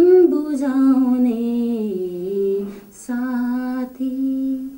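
A woman singing a Nepali song unaccompanied, holding long notes. A phrase slides slowly down in pitch over the first two seconds; after a short break about three seconds in come two steady held notes, and the singing stops just before the end.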